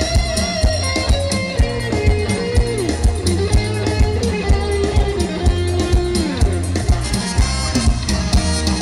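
Live Isan stage-band music played loud through a PA system. A steady drum beat lands about twice a second under a bass line, and a melody line bends up and down in pitch.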